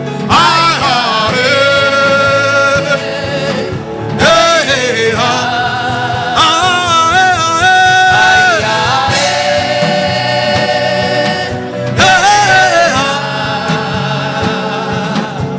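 Gospel worship chant: sung phrases with long held, wavering notes over a steady instrumental backing, a new phrase beginning about every two to six seconds.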